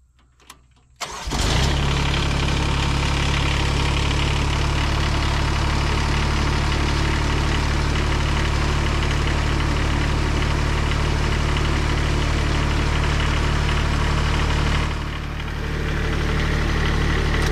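Grasshopper 325D zero-turn mower's 25-horsepower liquid-cooled Kubota diesel engine starting about a second in, catching almost at once, then idling steadily.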